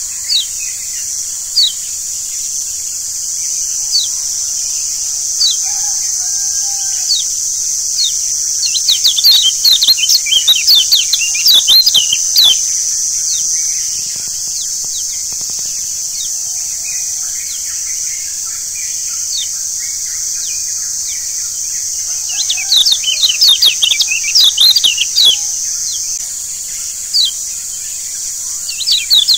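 Yellow white-eyes (kecial kuning, a Lombok Zosterops) calling in rapid, sharp chirps that come in bursts, busiest in the middle and again near the end, over a steady high-pitched hiss.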